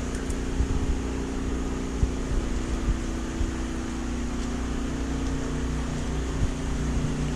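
Steady mechanical hum of gasoline generators and aquarium water pumps running continuously to keep the fish tanks going through a power outage, with a few light knocks.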